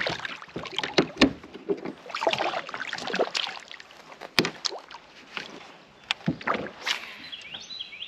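A small fish splashing into the water as it is dropped from a kayak, followed by irregular knocks, clicks and small water splashes as a fishing rod, line and lure are handled against the plastic kayak hull.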